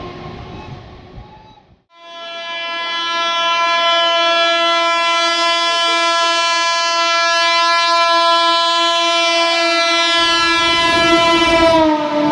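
Diesel locomotive's horn sounding one long, steady blast of about ten seconds, its pitch dropping slightly near the end as the locomotive passes. Rumbling train noise fades before the horn starts and swells again as the pitch drops.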